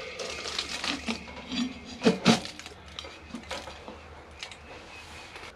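Metal cookware clinking and clattering as a lid is put onto a cooking pot, with two sharper knocks about two seconds in.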